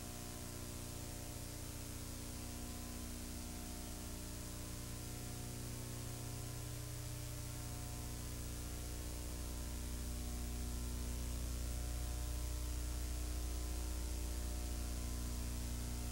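Faint, steady drone of a Cessna 182's engine with a hiss over it, growing louder about ten seconds in as power comes up for the takeoff roll.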